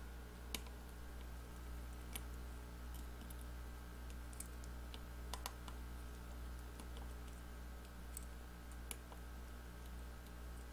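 Scattered faint clicks and ticks of a precision screwdriver on the tiny screws and metal brackets of an iPhone 6 logic board, over a steady low electrical hum.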